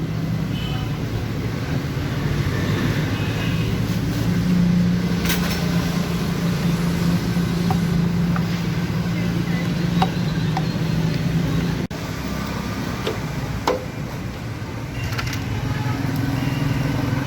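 A steady low engine hum, with a few short, sharp metallic clicks of hand tools on engine parts.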